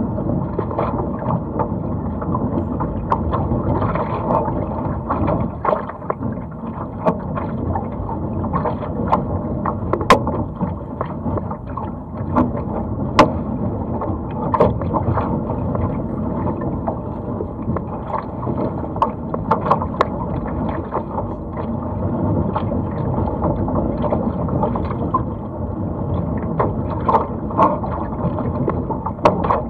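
Steady rush of water and wind around a Laser sailing dinghy under way, with frequent short sharp splashes and knocks against the hull.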